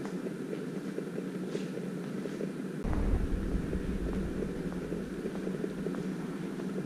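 Steady low hum of ambient noise in a large open building. About three seconds in, a gust of wind buffets the microphone with a low rumble that fades over the next few seconds.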